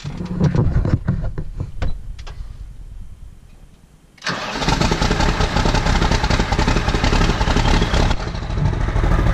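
New Holland TS115A tractor's straight-six mechanical diesel being started after a valve adjustment. The starter cranks for about four seconds, getting quieter, then the engine fires abruptly and runs steadily with a dense clatter.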